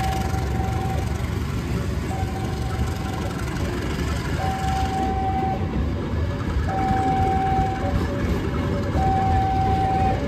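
Railway level-crossing warning alarm sounding: an electronic two-tone signal, a higher tone held about a second alternating with a lower pulsing tone, repeating about every two seconds. A steady low rumble of railway engine noise runs underneath.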